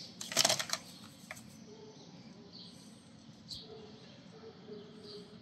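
A quick clatter of knocks and clicks from hand tools being handled, about half a second in, then two single clicks, over faint intermittent bird chirps.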